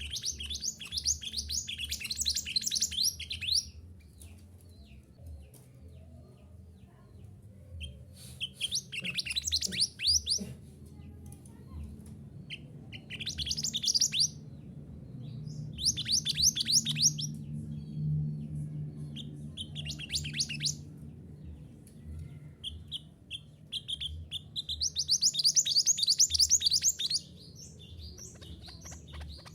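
Mantenan gunung songbird singing in six bursts of rapid chattering trills, each a fast run of short high notes that fall in pitch, separated by pauses of a few seconds. This is a song recording used as masteran to train cage birds to sing.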